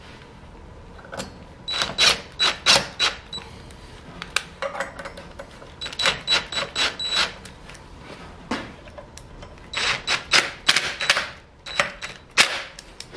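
Cordless drill-driver running in several short bursts with rapid, even clicking, driving bolts through a steel mounting plate into a portable bandsaw's housing.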